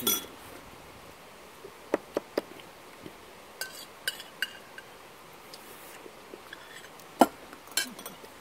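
Metal chopsticks and spoons clinking against ceramic bowls in scattered sharp taps, a few of them ringing briefly. Near the end comes the loudest knock, as a large bowl is set down on the table.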